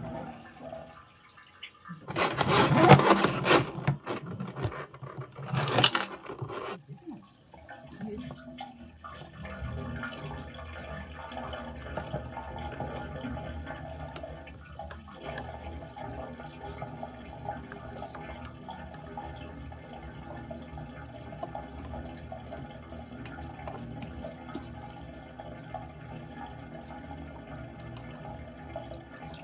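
Water rushing and gurgling through a kitchen drain pipe during high-pressure jet cleaning. Two loud rushes come in the first few seconds, then a steady flow with an even machine-like hum underneath.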